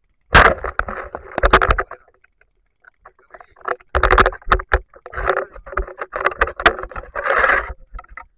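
Water splashing and sloshing in two spells of short bursts, broken by sharp clicks and knocks, as a diver moves in shallow river water.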